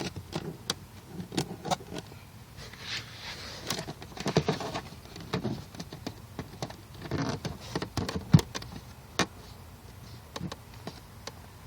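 Hands tucking LED strip wiring behind a car's interior trim: irregular clicks and taps with short rustling scrapes, and one sharper knock about eight seconds in.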